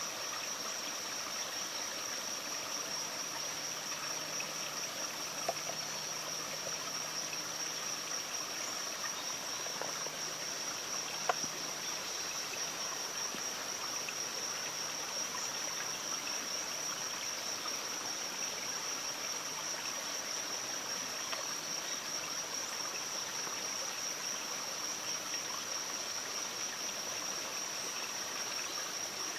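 Steady high-pitched insect chorus that holds one unbroken pitch, over an even rushing hiss, with a couple of faint brief clicks.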